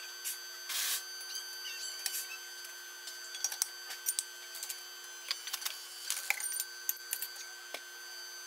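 Light metallic clicks and taps of steel motorcycle flywheel parts being set onto the pins of a press fixture, irregular and thickest in the middle, over a steady hum.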